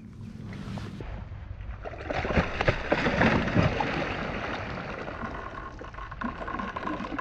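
A hooked muskie thrashing at the surface, splashing hard for about two seconds, then water washing and sloshing as it settles back under.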